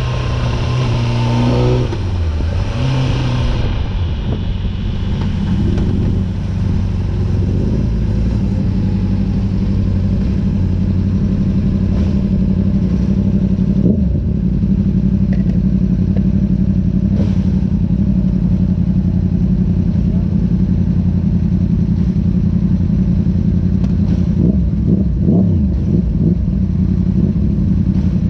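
Honda sport bike engine heard from on board under way, with wind rush: the engine note falls in the first two seconds as the bike slows, then holds steady at cruising revs, with a few short rev changes near the end.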